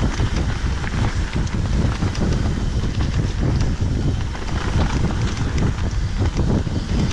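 Wind buffeting the microphone of a mountain bike rolling fast down a rough trail, with frequent small clicks and rattles from the tyres and bike over the trail surface.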